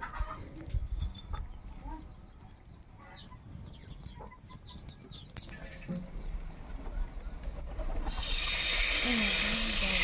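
Small birds chirping in the background. About eight seconds in, a loud steady hiss starts and keeps going: cooking oil sizzling as it is poured into a hot iron wok.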